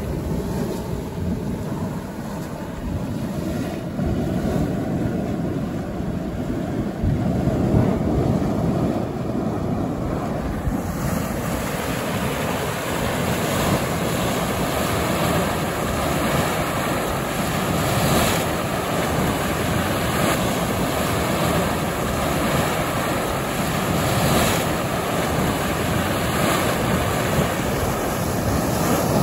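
Steady rushing and churning of a steaming hot spring, with wind buffeting the microphone. About a third of the way in the rush grows brighter and begins to surge every few seconds.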